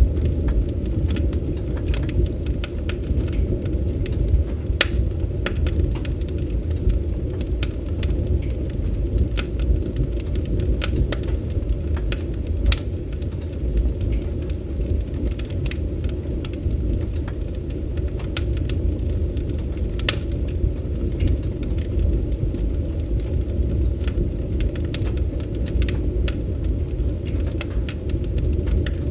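Wood fire burning, with a steady low rumble under frequent, irregular sharp crackles and pops.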